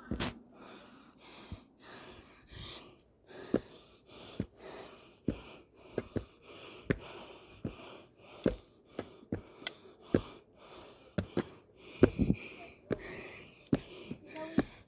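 Heavy breathing of a hiker climbing steps, with footsteps striking the steps about once or twice a second.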